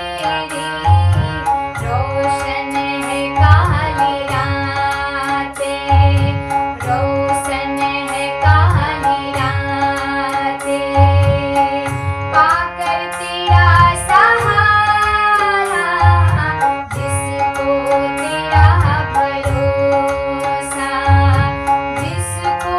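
Hindu devotional song (bhajan) to Krishna: a voice singing over sustained instrumental tones and a steady hand-drum beat about once a second, with a long sliding vocal phrase near the middle.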